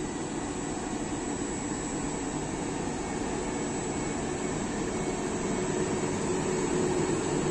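Two ÖBB Siemens Vectron electric locomotives hauling tank wagons, approaching: a steady rumble of running gear and hum of the locomotives' equipment that grows louder, with a steady humming tone coming in about five seconds in.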